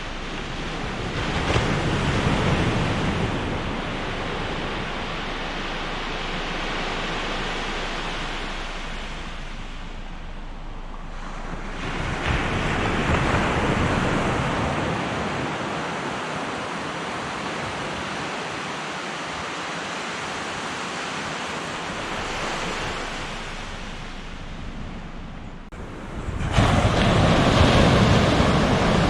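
Ocean waves breaking and washing on the shore, a steady surf noise that swells about two seconds in and again around thirteen seconds, and grows louder near the end.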